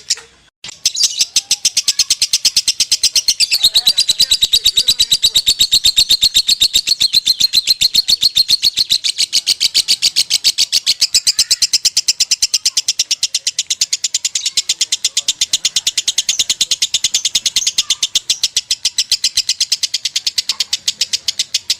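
Lovebird singing a long unbroken 'konslet' chatter: a fast, even stream of short high chirps that runs on without a break after a brief pause near the start.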